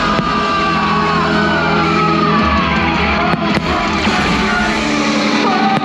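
Loud fireworks-show soundtrack music playing over a sound system, with long held notes and slowly gliding melodic lines over a dense, steady backing.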